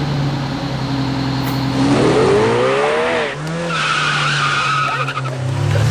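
Car sound effect: an engine running, revving up with a rising pitch about two seconds in, then a high tire squeal for about a second.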